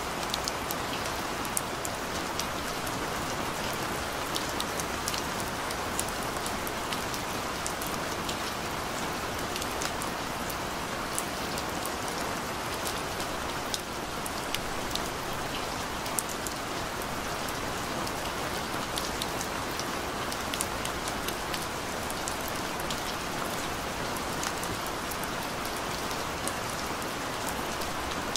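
Steady rain falling: a constant hiss with many small, sharp drop ticks scattered through it.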